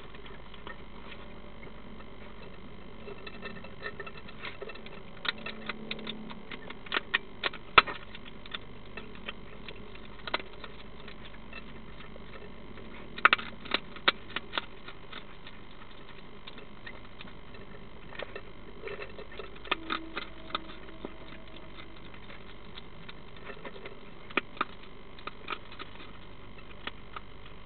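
European hedgehog crunching dry food in a feeding bowl: irregular sharp crunches in bunches, over a steady background hiss.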